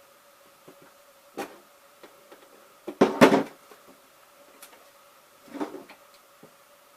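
Cardboard packaging being handled and opened by hand. There is a knock about a second and a half in, a louder scraping clatter about three seconds in, another rustle and knock near the end, and small clicks in between, over a faint steady electrical hum.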